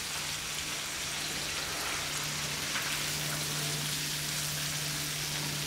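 Hot oil sizzling and bubbling steadily around flour-coated chicken drumsticks deep-frying in a wok, during the short first fry that sets the crust. A steady low hum runs underneath.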